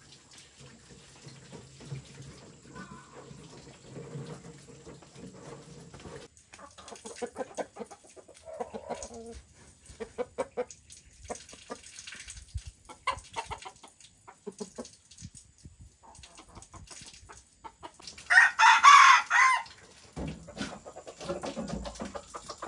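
Chickens clucking in scattered short calls, with a rooster crowing once, loud and about two seconds long, near the end.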